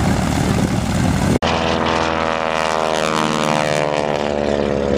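Propeller airplane's piston engine: a rough engine rumble, broken off by an abrupt cut about a second and a half in, then a low pass with a steady many-toned engine drone whose pitch slowly falls as the plane goes by.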